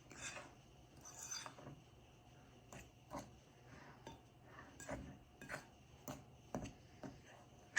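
A fork clinking and scraping against a mixing bowl at irregular intervals, stirring a brown sugar, flour and butter crumble topping.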